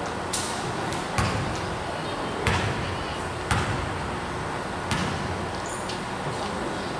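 A basketball bouncing on a gym floor, five bounces about a second apart, echoing in the hall.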